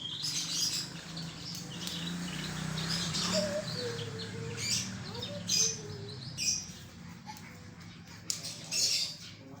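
Domestic canary singing in repeated bursts of high chirps and trills, over a steady low hum.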